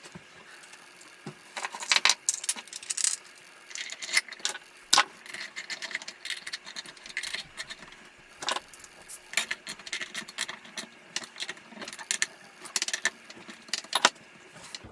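Scattered sharp metallic clicks and clinks of small steel parts being handled, as a retaining clip is worked back into place by hand on the bushing housing of a Milwaukee 6230 portable bandsaw.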